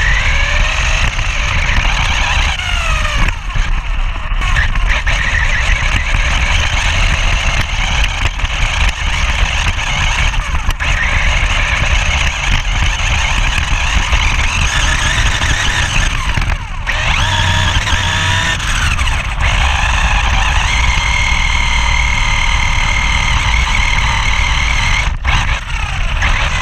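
HSP Planet 1/8-scale 4WD RC buggy driving, heard from a camera mounted on the car. Its brushless motor's whine rises and falls several times with the throttle, over a steady low rumble.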